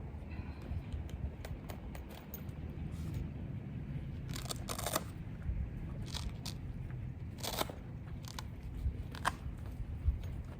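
Scattered crunches and clicks from a folding Jackery solar panel being handled and set out, at uneven moments over a low rumble.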